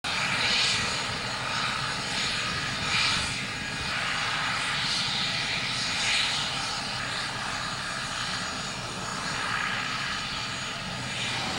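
Helicopter turbine engines running on the ground: a steady roar and whine that swells and eases slightly.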